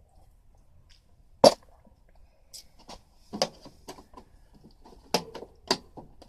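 Sharp clicks and knocks from parts of an air conditioner being worked loose by hand: one loud knock about a second and a half in, then a run of smaller clicks and taps with a few louder knocks near the end.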